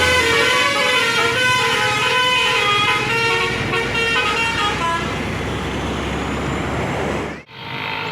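Tour bus 'telolet basuri' musical horn playing a quick melody of stepping notes over the bus's engine running, fading out about five seconds in. The sound cuts off abruptly near the end.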